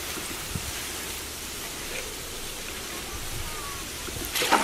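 French fries deep-frying in a large pan of hot oil: a steady sizzling hiss, with a brief louder burst near the end.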